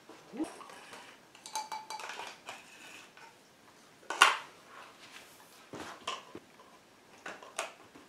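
Small plastic cups knocking and clattering on a carpeted floor as they are set down and shifted about. It is a loose string of sharp clicks and taps, with one louder knock about four seconds in.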